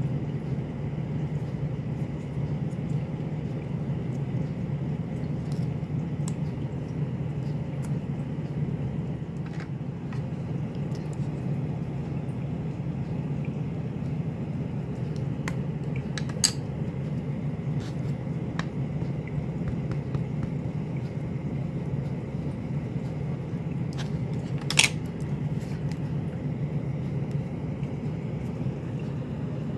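Steady low background hum, with a few light clicks and knocks from plastic craft supplies being handled. The sharpest click comes about 25 seconds in.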